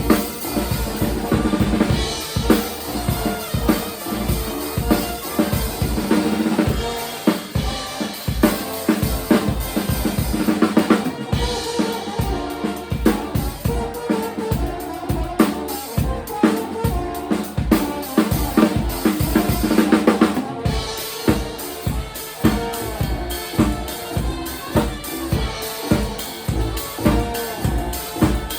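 Live band playing a song, the drum kit to the fore with kick and snare keeping a steady beat under the other instruments.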